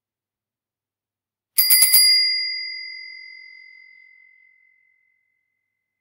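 Double-ring bicycle bell struck in a quick trill of about five strikes in half a second, starting about a second and a half in. Its tone then rings on and fades out over about three seconds.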